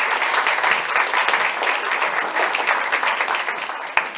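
Audience applauding, a dense clatter of many hands clapping, with a single sharp knock near the end.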